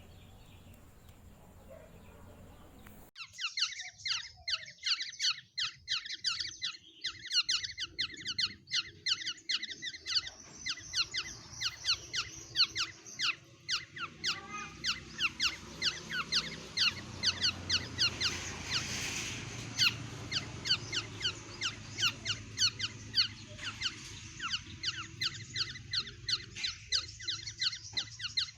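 A caged songbird singing a fast run of short, sharp, high chirps, about three or four a second, starting suddenly a few seconds in.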